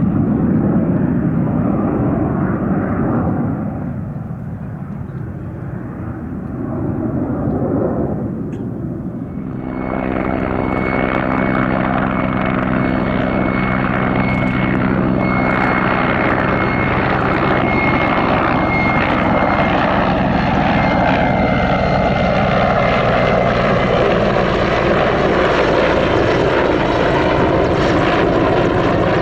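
Military aircraft flying past in a formation flypast, a continuous engine rush. About a third of the way in the sound changes abruptly to a brighter aircraft noise with a steady high whine over a stack of humming tones. Later the tones slide down in pitch as it passes.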